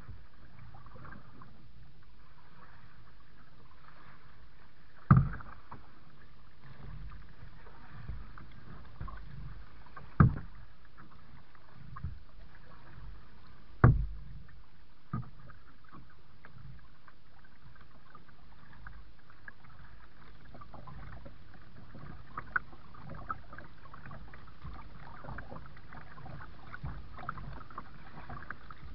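Kayak being paddled: steady low water sounds from the paddle and hull, broken by a few sharp knocks, the loudest about five, ten and fourteen seconds in.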